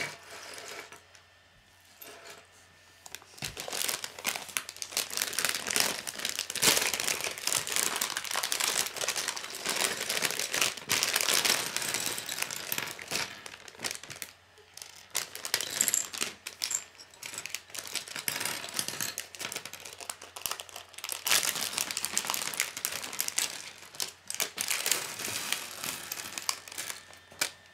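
Plastic Lego parts bag crinkling as it is handled and torn open, with Lego Technic pieces clicking and clattering as they are poured out and sorted on a wooden table. The crinkling and clicking go on almost without a break, with a short lull about halfway through.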